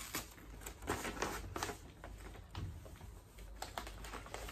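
Gift-wrapping paper crinkling and rustling in short, irregular crackles as it is pulled open by hand.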